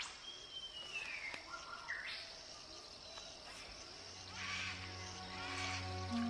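Natural creek-side ambience: a steady high insect drone with a bird's whistled call sliding downward in the first second and a half, and a couple of softer high chirps later. Soft music with long held notes fades in over the last two seconds.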